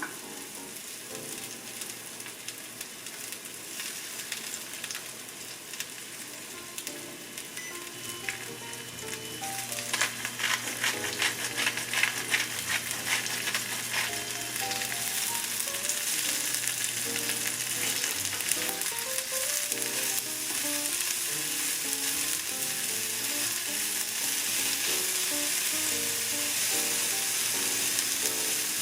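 A shungiku, shimeji and bacon stir-fry sizzling in a frying pan while it is stirred. The sizzle grows louder about ten seconds in, with a few seconds of crackling, then settles into a steady hiss. Soft background music plays underneath.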